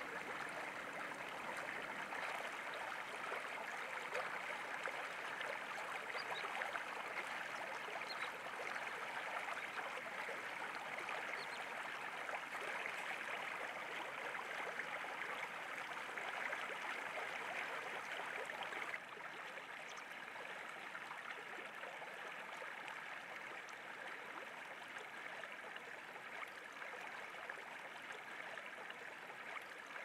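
Steady rush of running water, like a stream flowing, with a few faint high chirps in the first half; it becomes a little quieter about two-thirds of the way through.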